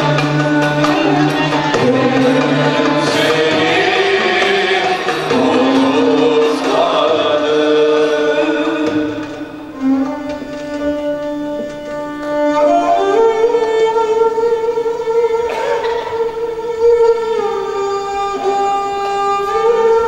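Turkish classical ensemble music. A woman sings solo over violins and light percussion for about the first half. Then the voice stops and the bowed strings carry on alone, playing long held notes that step from pitch to pitch.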